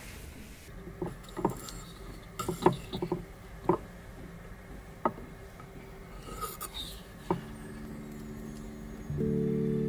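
Scattered light knocks and clicks of a knife and food being handled on a wooden serving board. Soft background music starts near the end.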